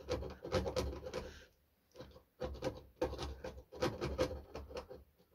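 Small hacksaw blade in a handle sawing back and forth at the edge of a round hole in a laminated wood-board panel, notching it for a socket's plastic ridge. Quick rasping strokes, about six a second, in three runs with a short pause about a second and a half in.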